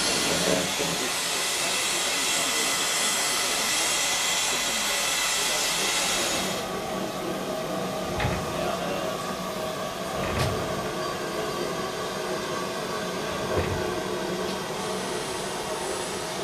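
Steam locomotive venting steam with a steady loud hiss, which cuts off suddenly about six and a half seconds in. After that comes a quieter outdoor background with a few short dull knocks.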